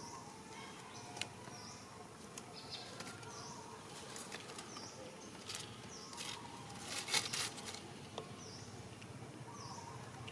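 Faint outdoor ambience with a small bird giving a short high chirp about every second or two, over scattered rustling and crackling clicks that grow louder about seven seconds in.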